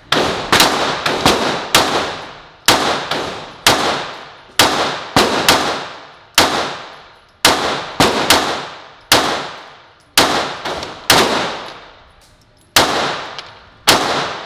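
Ported Glock 17 9mm pistol fired in a string of about twenty shots, one to two a second at uneven spacing. Each crack echoes off the range for most of a second.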